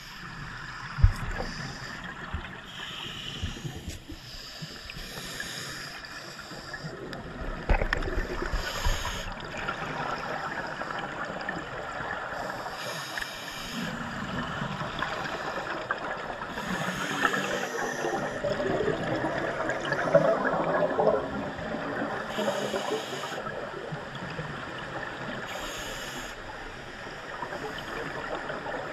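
Scuba regulator exhalation bubbles rushing out in bursts roughly every four seconds, heard underwater over a steady muffled water hiss, with a couple of knocks against the camera early on.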